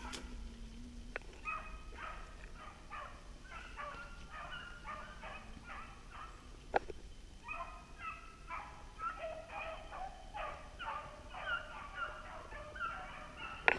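Beagles baying in quick, overlapping calls while running a rabbit's scent trail, with a short break about halfway through. A single sharp snap comes during the break.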